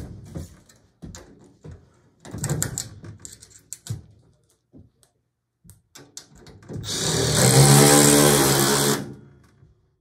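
Power drill running steadily for about two seconds near the end, after a few scattered knocks and clatter from handling tools and parts.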